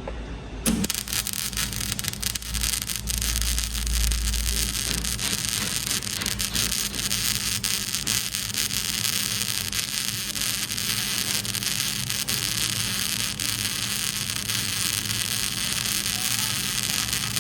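Electric arc welding: the arc strikes about a second in, then burns steadily with a continuous crackling hiss over a low electrical hum.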